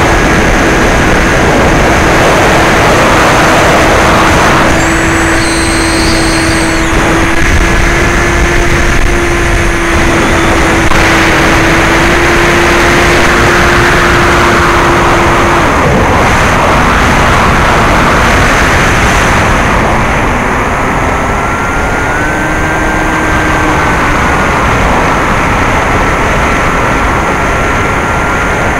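Bixler 2 RC plane in flight, heard from its onboard camera: its brushless electric motor (NTM 35-30A, 1400kv) and 9x6 propeller run steadily under a heavy rush of wind on the microphone. The motor's steady note drops in pitch about sixteen seconds in.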